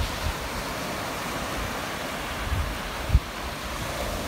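Small waves breaking and washing up a sandy beach, with wind buffeting the microphone in low rumbles. A single short low thump about three seconds in.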